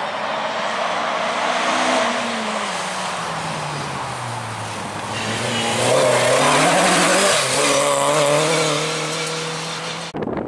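Rally car engine: its pitch drops as it slows for a corner about two seconds in, then climbs again as it accelerates through. It is loudest around six to seven seconds in, holds steady, and cuts off suddenly near the end.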